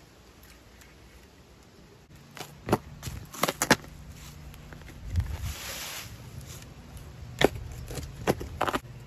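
A long-handled shovel digging a post hole in forest soil: several sharp chops as the blade is driven into the ground, starting about two seconds in, with a longer scraping rush of soil about midway.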